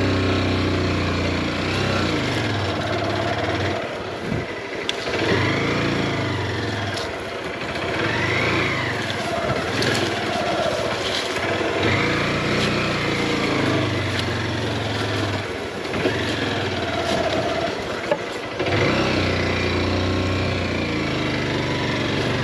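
Heavily loaded motorcycle engine revving up and down repeatedly as the bike works its way over a rough, rutted climb, with the engine note dropping briefly a few times.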